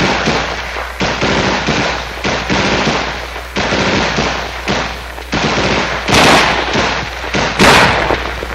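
M16A1 rifles firing in rapid automatic bursts, cracks following one another with hardly a gap, with two louder stretches about six and seven and a half seconds in.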